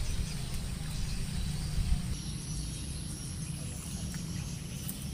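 Outdoor ambience: a steady low rumble, with a thin high steady tone coming in about two seconds in.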